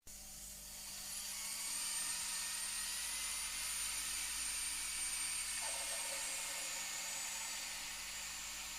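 Kettle at the boil, steam hissing out steadily. It builds over the first couple of seconds, with faint thin high whistle tones running through the hiss.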